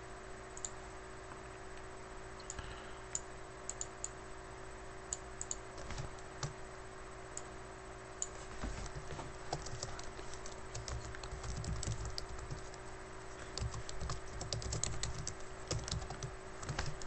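Typing on a computer keyboard: a few scattered keystrokes at first, then a quick, dense run of keystrokes from about halfway through.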